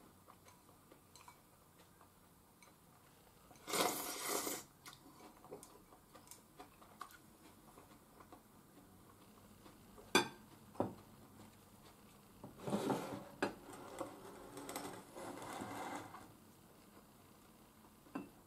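Eating sounds from a porcelain bowl of nameko mushroom soup and chopsticks: soft slurps of the soup about four seconds in and again from about thirteen to sixteen seconds, a single sharp knock near the middle as the bowl is set down on the table, and faint clicks of chopsticks.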